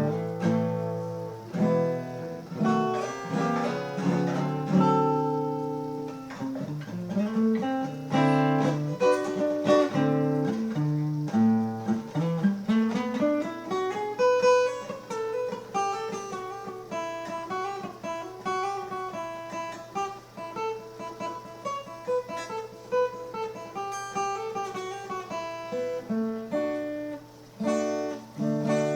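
Acoustic guitar being played: dense strummed chords for the first twelve seconds or so, then a picked melody of single notes that climbs in a quick run and wanders up and down.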